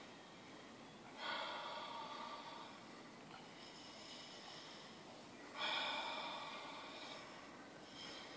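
A person breathing slowly and deeply while holding a wall sit: two long, audible exhales, one about a second in and one near the middle, each fading out, with fainter inhales between them.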